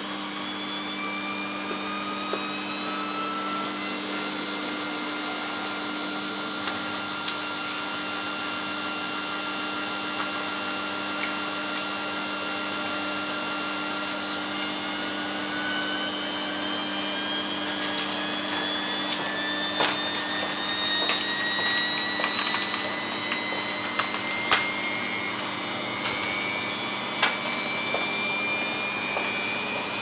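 Samsung WF8804RPA front-loading washing machine in its final interim spin, its 800 rpm spin speeding up: a motor whine rising slowly in pitch over a steady hum and getting louder. A few sharp knocks come in the second half as the drum turns faster.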